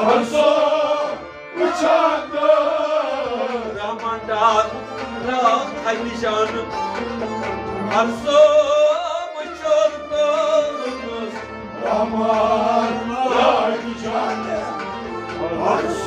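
Kashmiri Sufi devotional song (Sufiana kalam): men singing a melodic line over a harmonium and a string instrument, with hand percussion keeping an even, repeating beat.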